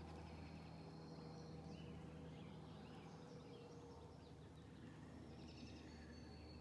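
Faint birdsong, scattered high chirps and short trills, over a low steady background hum.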